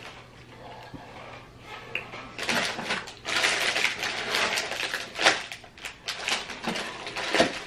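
Snack packaging rustling and crinkling as a hand rummages through a cardboard box of packaged snacks. The rustling starts about two and a half seconds in, with a sharp click about five seconds in.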